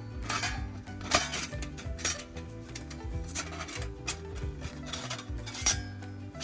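Metal camp cookware and utensils clinking and knocking at irregular moments, the loudest knock about a second in, over steady background music.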